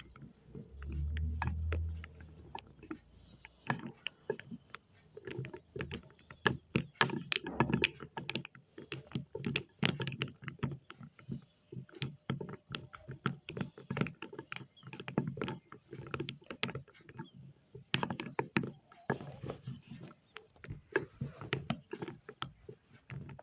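Wet chalk being handled and crushed: a dense, irregular run of crackles and small clicks, with a brief low rumble about a second in.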